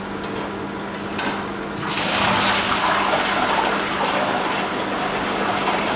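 Water rushing steadily through the brew kit's pipework at the boil kettle, swelling louder about two seconds in, with a steady hum underneath and a sharp click a little over a second in.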